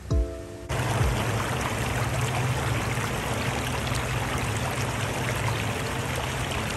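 Small waves washing in over a pebble shore: a steady rush of water with a low rumble underneath, cutting in suddenly just under a second in after a moment of music.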